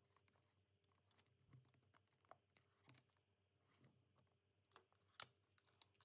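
Near silence with faint, scattered clicks and soft rustles of plastic airway tubing and gloved hands being handled on a training trainer, the sharpest click about five seconds in.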